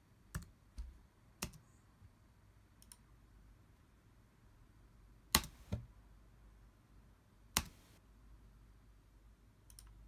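Sharp clicks of a computer mouse button and keyboard keys, about six of them spread out irregularly, the loudest two about five and a half and seven and a half seconds in.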